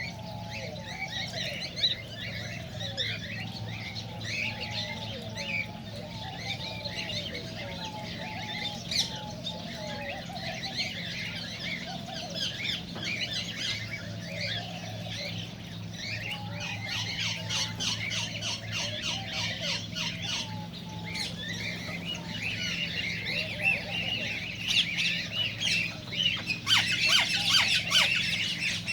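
Cockatiels chattering, with many overlapping chirps and warbling whistles, and harsh squawks coming in clusters about two-thirds of the way through and again near the end. A steady low hum runs underneath.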